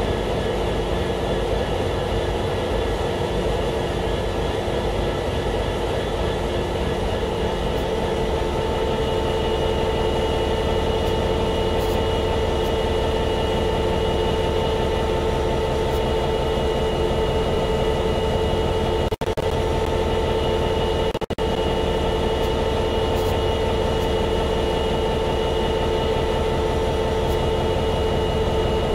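EMD 12-710G3C-EC twelve-cylinder two-stroke diesel prime mover of an F59PHI passenger locomotive idling steadily. It gives a low engine rumble under several steady whining tones.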